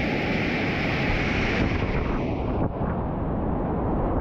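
Loud, steady rush of whitewater rapids churning around a kayak. A little past halfway, the high hiss drops away and the sound turns duller.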